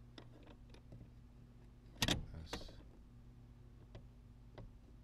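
Jack and its plastic housing handled against the metal mounting bracket: faint ticks and one sharp clack about two seconds in as it is rested into the bracket's notches, over a steady low hum.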